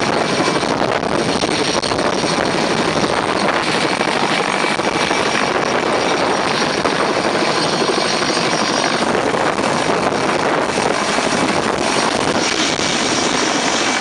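Mil Mi-2 twin-turbine helicopter hovering and manoeuvring low overhead, its rotor and turbines very loud and steady throughout.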